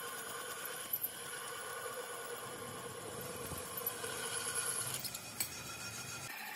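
Drill press boring holes in the flange of a tractor brake drum: the bit cutting metal with a steady high squeal over the running hum of the machine, with a couple of brief knocks.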